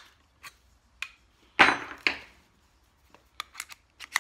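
Clicks and knocks of a bit change on a Ryobi cordless drill: the pocket-hole drill bit pulled from the chuck and a driver bit put in. Loudest are two sharp knocks a little over a second and a half in, with lighter metal ticks before and after.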